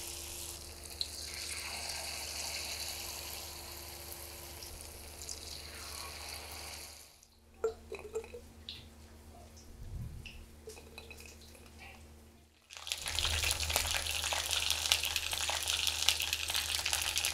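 Batter-coated potato-and-chicken snacks deep-frying in hot oil: a steady sizzling hiss that turns much softer for about five seconds in the middle, with a few light clicks, then comes back as a louder, dense crackle of bubbling oil for the last few seconds.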